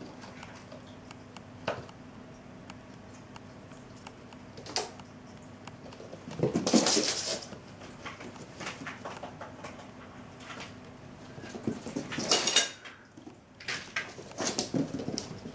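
Cats' paws and claws skittering on a wooden floor as they chase a laser dot, with scattered light taps and two louder scrambles, about seven and about twelve seconds in.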